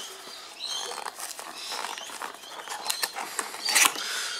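Tissue paper crinkling and cardboard packaging being handled and shifted, with irregular rustles and light scrapes and a louder crackle near the end.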